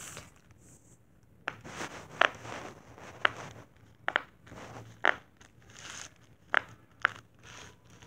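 Bubbles of a silicone pop-it fidget toy being pressed in one by one, each giving a sharp pop, irregularly spaced about one a second.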